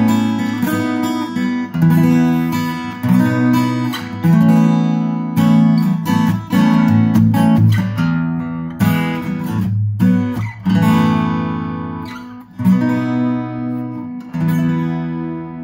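Cat's Eyes CE-200 dreadnought steel-string acoustic guitar, made by Tokai Gakki in the 1970s, played fingerstyle: plucked bass notes and chords ringing out and decaying one after another.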